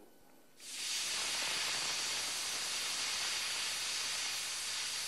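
Steam locomotive letting off steam: a steady hiss that starts suddenly about half a second in, after a moment of near silence.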